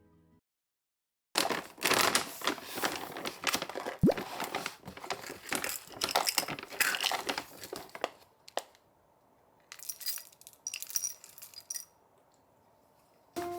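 Crinkly packaging rustling and crackling in two stretches, with a click in between and a few light clinks in the second stretch.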